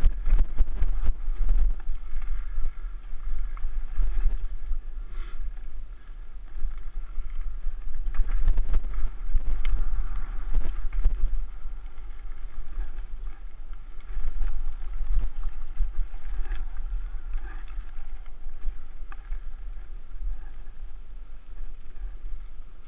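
Wind buffeting the microphone of a fast-moving action camera as a deep, steady rumble, with bursts of knocks and rattles from bumps on the dirt trail around the start and again about eight seconds in.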